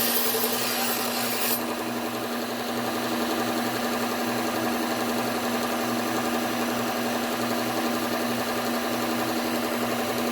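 Low-speed belt sander running while a kitchen knife's bent tip is ground down: a hissing grinding noise over the motor's steady hum for about the first second and a half, then stopping, leaving the belt running on with the hum and a faint regular pulse.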